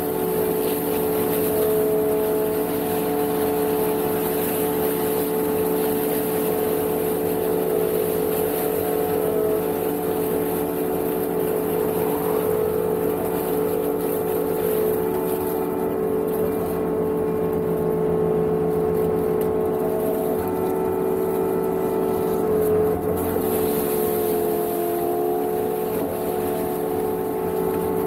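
Energreen ILF S1500 self-propelled boom mower working, with its engine and hydraulics running under load and the arm-mounted flail mulcher head shredding dry reeds and brush. A steady whining drone with a high hiss over it; its pitch wavers briefly near the end.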